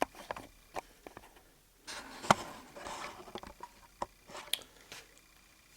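Scattered clicks, knocks and scraping from hands working on a gutted refrigerator's parts and insulation, with a stretch of rustling about two seconds in and the sharpest knock in the middle of it.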